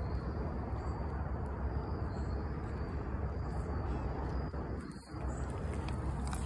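Steady outdoor background noise, mostly a low rumble, with faint short high chirps now and then and a brief lull about five seconds in.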